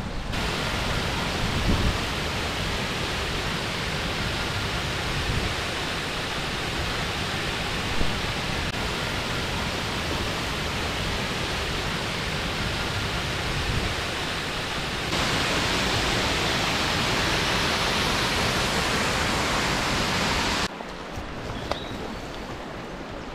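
Steady rush of a small waterfall plunging into a pool. It steps up louder about two-thirds of the way through, then drops away suddenly near the end to the quieter flow of the beck.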